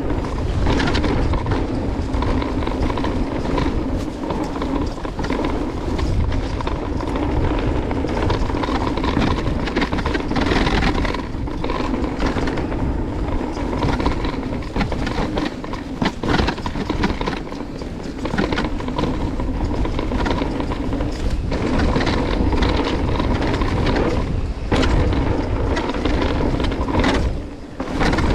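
Mountain-bike riding noise on a dirt trail, recorded on an action camera: wind rushing over the microphone together with tyre and rattling bike noise. It runs loud and continuous, with a couple of brief dips.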